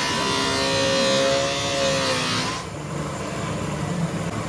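A motor running with a steady pitched hum that sags slightly, cutting out suddenly about two and a half seconds in, after which a lower hum remains.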